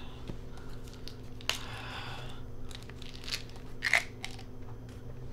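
Handling noise from a small plastic bottle: several sharp clicks, the loudest about four seconds in, with a short stretch of crunching, over a low steady hum.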